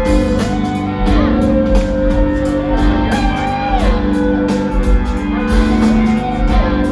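Rock band playing live, an instrumental passage with no singing: drums keep a steady beat under bass and guitar, with sliding melodic lines on top.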